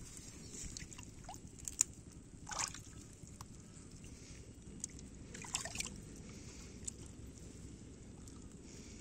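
Shallow water sloshing and trickling as a hand works through it towards a fish, with a few brief splashes scattered through it, the sharpest about two seconds in.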